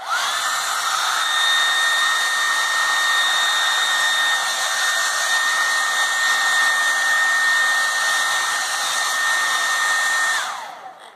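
Handheld hair dryer switched on, its motor whine climbing quickly to a steady high pitch over a rush of blown air, then switched off near the end and spinning down with a falling whine.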